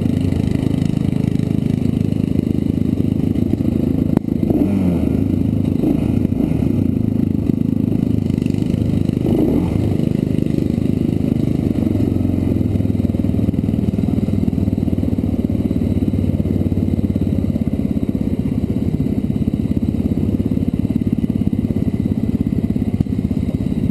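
Small off-road engine running steadily at an even speed, heard from the moving vehicle, with rattling and a sharp knock about four seconds in as the ride goes over a rough dirt trail.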